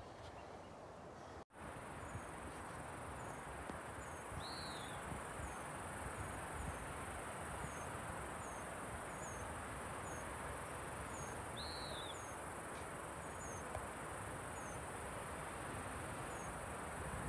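Forest ambience: a steady high-pitched insect buzz with faint chirps repeating about once a second, and two short arched bird calls, one about four seconds in and one about twelve seconds in, over a faint even background hiss.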